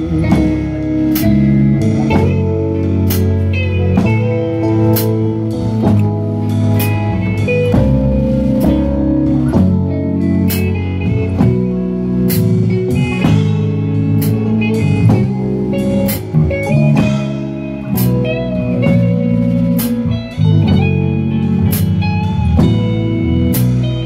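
A live band playing: electric guitar over bass and a drum kit, with cymbal hits about once a second.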